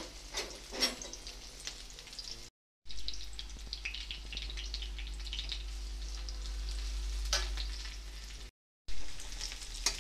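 Chopped onions sizzling in hot oil in a kadai, with a metal spatula clicking and scraping against the pan as they are stirred. The sound drops out briefly twice.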